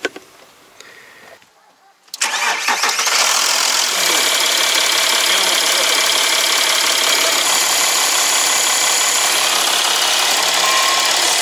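3.0 V6 TDI diesel engine of a VW Touareg cranking about two seconds in, catching and settling into a steady idle. It is started to test the newly replaced, freshly bled power steering pump.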